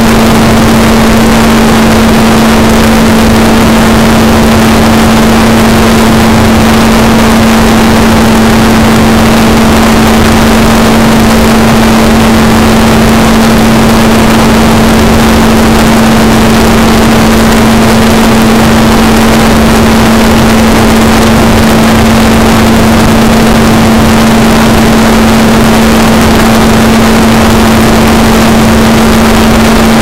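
Blade 360 CFX collective-pitch RC helicopter heard through its onboard camera's microphone: its electric motor and rotor give a loud steady hum held at one constant pitch, under heavy wind rush on the microphone.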